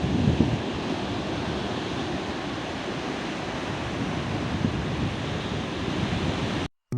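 Sea waves washing on the shore with wind buffeting the microphone, a steady rushing noise that cuts off abruptly near the end.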